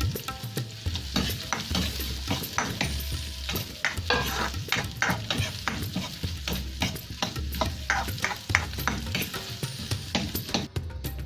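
Marinated meat sizzling as it fries in a pan, stirred and turned with a utensil that clicks and scrapes against the pan many times. The meat is cooking down to release its own fat before broth is added.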